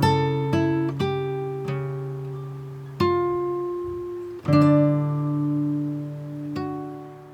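Slow acoustic guitar music: single plucked notes and chords, each left to ring and fade, the last one dying away near the end.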